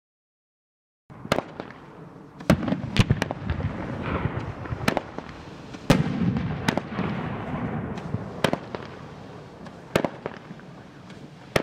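Dominator 'Piranha Panic' 200-gram fireworks cake firing, starting about a second in: a string of sharp reports roughly a second apart, with a continuous hiss of burning shots between them.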